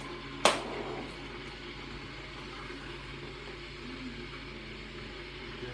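A single sharp knock about half a second in, over a steady low mechanical hum.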